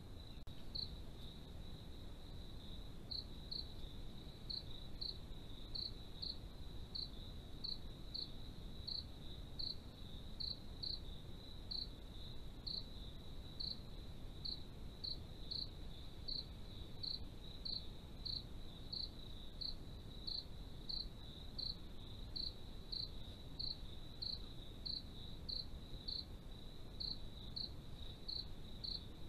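Night insects, crickets, calling: a steady high trill with short chirps repeating about twice a second, over a low steady hiss.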